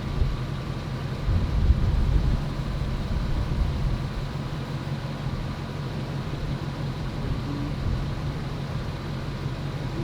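Ford Excursion's engine idling with a steady low drone, a little louder for about a second near the start.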